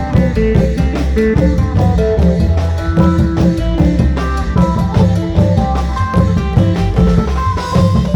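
Isan folk music: a phin (Thai plucked lute) playing a quick melody over klong yao long drums beating a steady rhythm.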